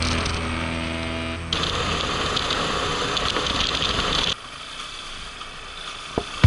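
Motorcycle engine running at a steady speed on a gravel track. About a second and a half in, this gives way abruptly to a rattling, hissing road noise from the bike on loose gravel. The noise drops suddenly to a quieter level a little past four seconds.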